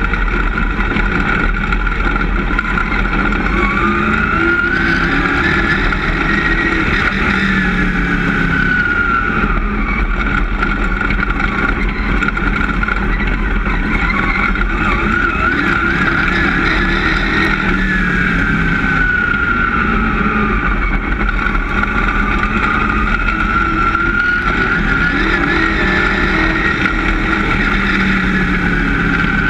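Dirt-track race car engine heard from inside the cockpit at race pace, loud and unbroken. Its pitch rises and falls in long sweeps several times, revving up down the straights and easing off into the turns.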